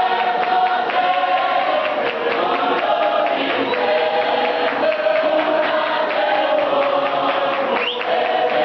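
A cappella gospel mass choir singing held notes in harmony, with hand claps and foot taps keeping a steady beat, in the South African clap-and-tap style.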